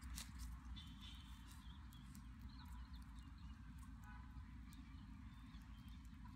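Faint crackling and light clicks from a small wood fire of embers being stirred with a stick, over a low steady rumble, with a few faint short high chirps.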